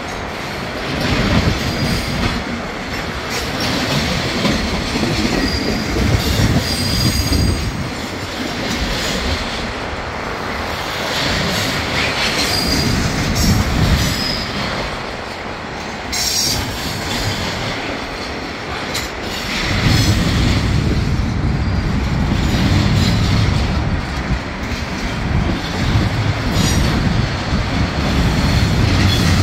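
Union Pacific freight train's double-stacked container well cars rolling past, steel wheels clattering on the rails, with brief high wheel squeals now and then.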